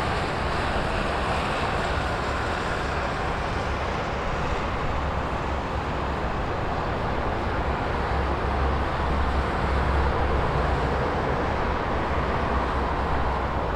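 Highway traffic: a steady rush of cars passing by, tyre and engine noise with a deep rumble, swelling a little about two-thirds of the way through as a vehicle passes closer.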